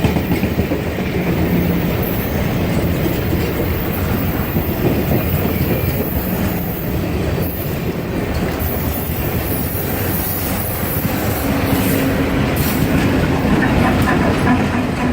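Cuyahoga Valley Scenic Railroad train passing close by, a steady loud rumble of its wheels on the rails with high wheel squeals at moments.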